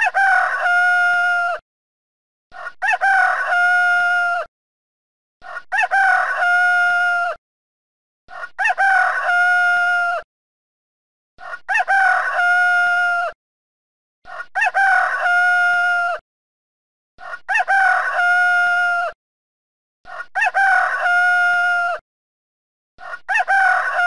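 Rooster crowing: the same cock-a-doodle-doo, about two seconds long with a rising start and a held ending, repeated identically about every three seconds with dead silence between, a single crow looped.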